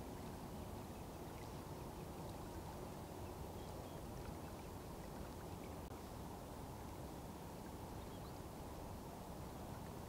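Steady low hum of distant road traffic, even and unbroken.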